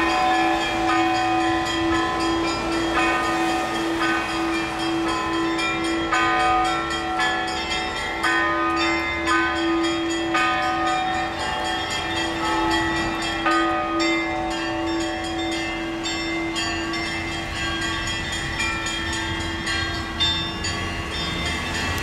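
Russian Orthodox church bells ringing from a cathedral bell tower: a quick, busy pattern of smaller bells struck at several pitches over a steady hum held at one pitch, with street traffic rumbling underneath.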